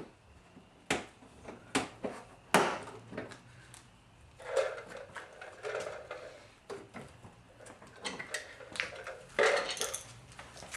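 Hand work on car body parts: three sharp clicks and knocks in the first few seconds, then rattling and scraping of tools and plastic trim pieces being handled.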